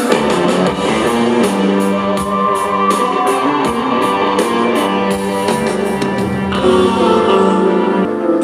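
Live rock band playing: electric guitars over a drum kit with steady cymbal hits. The sound cuts abruptly to a different passage near the end.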